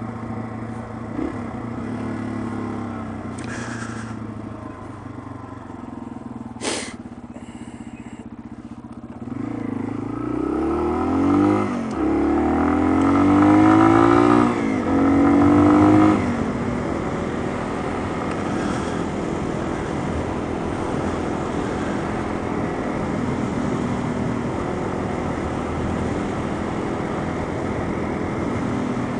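Yamaha TW200's single-cylinder engine heard from the rider's seat, running steadily at low speed. About ten seconds in it revs up in several rising steps as the bike accelerates through the gears, then settles into a steady cruise.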